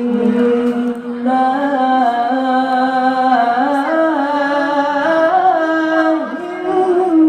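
A male qari reciting the Quran in melodic tilawah style, in a high voice, holding long notes that step up and down in pitch.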